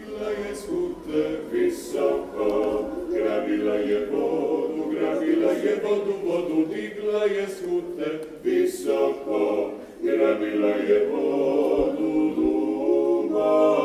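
An a cappella choir singing.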